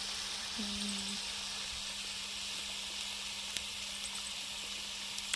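Food sizzling on a barbecue grill: a steady hiss, with a single click near the middle.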